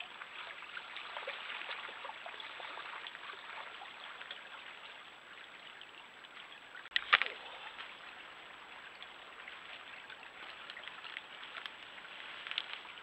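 Small stream running and trickling steadily, with one sharp click about seven seconds in.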